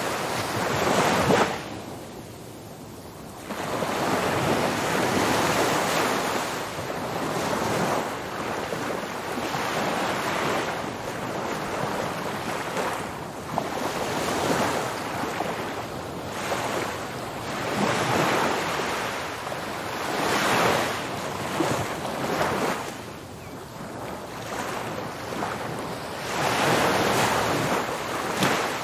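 Ocean surf: waves breaking and washing up the beach in repeated swells every few seconds, with wind noise on the microphone.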